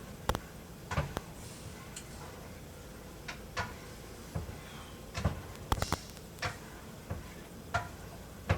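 A stirring utensil clicking and knocking against a saucepan at uneven intervals as a béchamel sauce is stirred on the heat.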